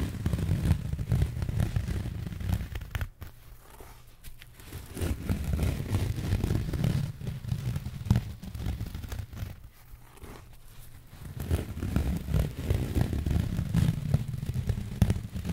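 A strip of thin, white, fibrous sheet material rubbed, stretched and scrunched close to the microphone, giving a rustling, scraping texture with a heavy low rumble. It comes in three long passes with quieter gaps between them.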